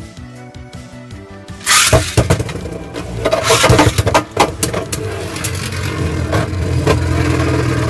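Background music, then about two seconds in a Beyblade launch with a sudden loud rush of noise. Spinning tops follow, clashing and scraping in the stadium with many sharp hits over a steady spinning hum.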